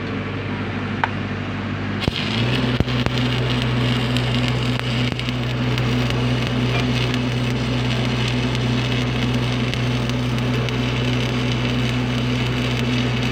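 Stick (SMAW) welding arc struck about two seconds in, then burning steadily with a dense crackle and sizzle over a deep, steady hum.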